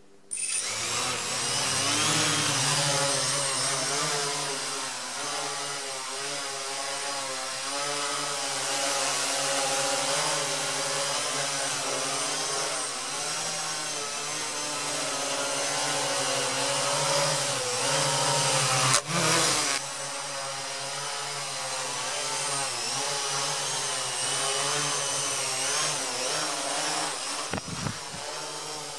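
Homemade quadcopter's four electric motors and propellers start up abruptly and run as a steady buzz, the pitch wavering up and down as the throttle changes while it lifts off and hovers. A single sharp click comes about two-thirds of the way through.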